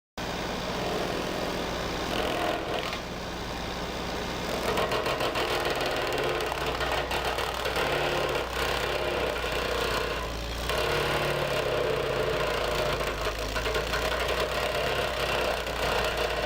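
Engine of a brush-cutting machine running steadily under load, cutting in abruptly at the start, with its loudness swelling and easing a little as it works through brush.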